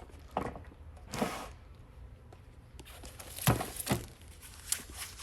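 Metal parts of a standing-desk frame being handled and fitted: a click, a short scrape about a second in, then a few sharp knocks, the loudest two close together about three and a half seconds in.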